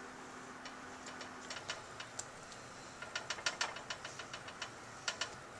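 Faint clicks and ticks of a spoon spreading pizza sauce over a crust on a metal baking sheet, coming in a quick irregular run about three seconds in.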